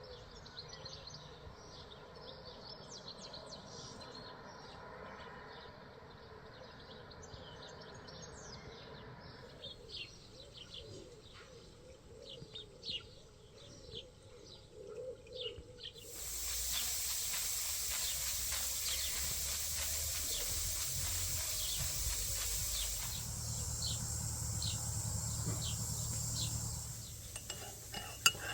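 Small garden birds chirping and singing. Just past the middle, a steady hiss rises over them for about ten seconds, then drops away.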